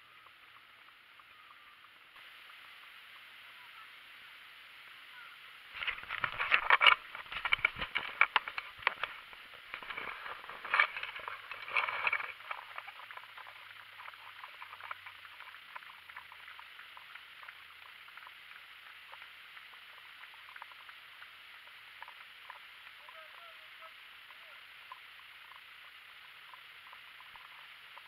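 Handling noise on a small action camera's microphone: about six seconds of dense rubbing, scraping and knocking while it is fiddled with. Then a faint, steady, muffled hiss.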